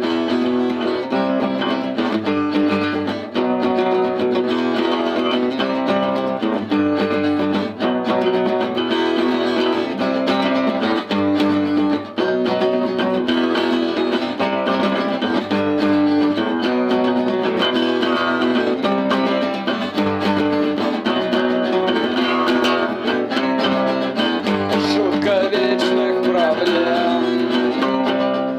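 Acoustic guitar strumming a repeating chord pattern in an instrumental passage of a song. A wavering higher line joins near the end.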